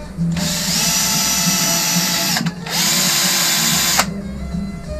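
Cordless drill spinning a bolt held in its chuck against a pad of wire wool, cleaning the rust off. The motor whine rises quickly to a steady pitch in two runs: a first of about two seconds, a brief pause, then a second that cuts off suddenly about four seconds in.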